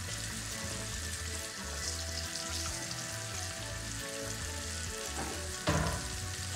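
Fish frying in hot oil, sizzling steadily, alongside a pot of green bananas and dumplings at a rolling boil. A single thump about five and a half seconds in.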